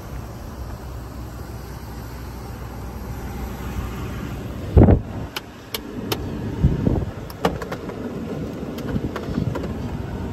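A steady low rumble, then one loud thump about five seconds in as someone climbs into the pickup's cab. After it come scattered light clicks and rustling of handling inside the cab.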